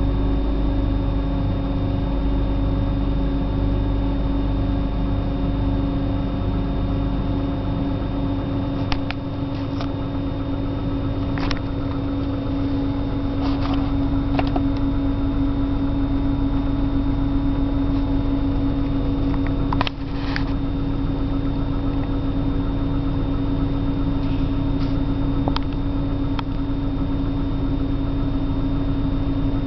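1997 BMW 328i's 2.8-litre straight-six idling roughly after a cold start, a steady run with a few short clicks in the middle stretch.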